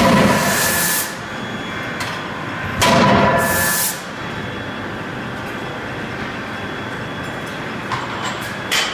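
Anyang C92K 31.5 kJ CNC die-forging hammer at work: a blow with a loud hiss lasting about a second fades out early, and a second blow and hiss follows about three seconds in. Between and after the strokes the machine runs with a steady noise, with a couple of light knocks near the end.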